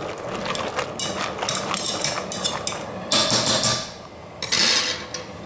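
Metal tongs stirring pasta in a stainless steel pot, clicking and scraping against the pot's sides in quick irregular strokes, followed by two louder short scraping rattles about three and four and a half seconds in.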